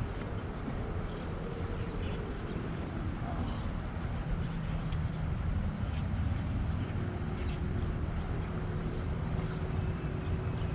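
Outdoor ambience: a steady low rumble under a fast, thin, high-pitched chirping that repeats evenly about six times a second.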